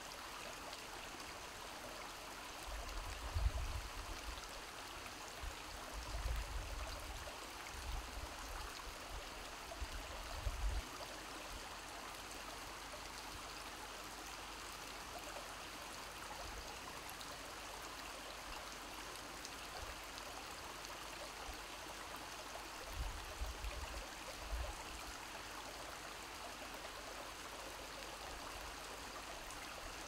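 Shallow rocky stream running over stones, a steady rushing babble. Several brief low rumbling bumps cut through it in the first eleven seconds and again about 23 seconds in.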